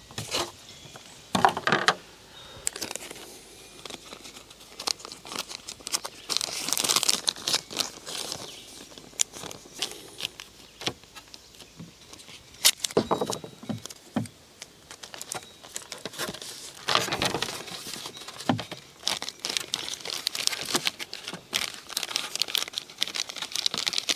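Plastic zip-top bag crinkling and rustling as it is handled, with scattered clicks and taps.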